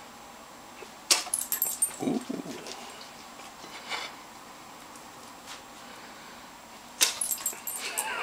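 German Shepherd snapping its jaws shut twice, about a second in and again near the end, each a sudden sharp clack with a brief rattle after it; a short low sound follows the first snap.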